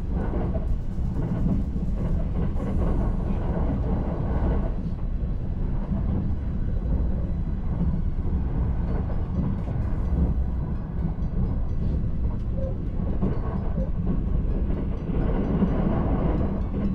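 Limited express Azusa, an E353 series electric train, running at speed: a steady low rumble of wheels on rail.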